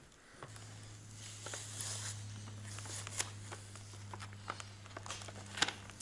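Plastic sheet and lithium pouch cell being peeled apart and handled with gloved hands: faint crinkling with scattered small clicks, more of them near the end. A steady low hum starts about half a second in.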